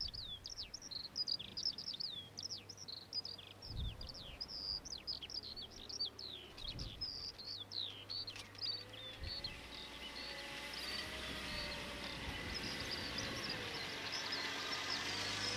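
Small birds chirping and twittering in quick, falling notes, thickening into a denser, continuous chorus about halfway through.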